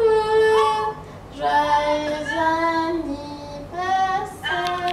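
A high voice singing a short melody in drawn-out, wavering notes, broken by brief pauses about a second in and again near the end.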